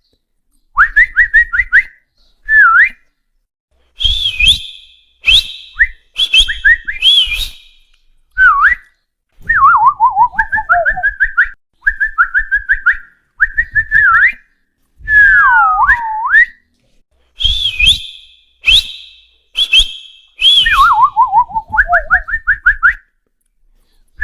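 Whistling of the kind used to call a dog: a string of short whistle phrases with brief gaps between them. The phrases include quick runs of repeated chirps, swooping whistles that dip and rise, and warbling trills that step down in pitch.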